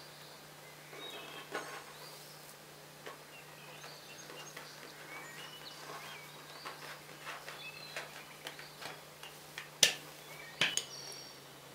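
Silicone rolling pin with wooden handles working a sheet of dough on a tabletop: a run of small clicks, taps and short squeaks as the pin rolls and is set down and the hands handle the dough, with two sharper knocks near the end.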